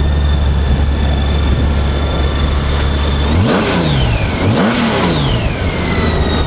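2008 Honda Gold Wing GL1800's liquid-cooled six-cylinder boxer engine idling quietly. A little past halfway it is revved twice in quick succession, each rev rising and dropping back to idle.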